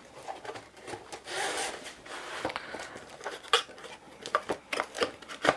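Cardboard packaging tube and a rolled paper canvas being handled on a wooden floor: rubbing and sliding, then several short knocks and clicks in the second half, the loudest near the end.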